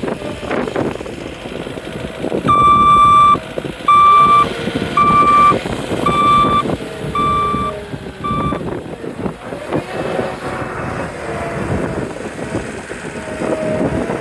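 Cat 242D skid steer's backup alarm beeping six times, about one beep a second, over its diesel engine running; the beeps stop a little after halfway through while the engine carries on.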